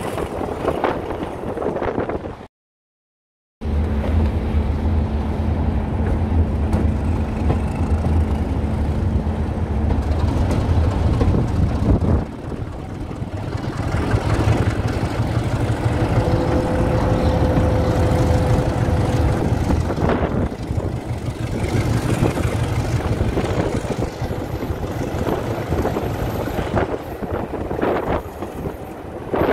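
Diesel engine of a rail vehicle running with a steady low drone, broken by a second of dead silence about three seconds in; the sound changes about twelve seconds in, and wind buffets the microphone near the end.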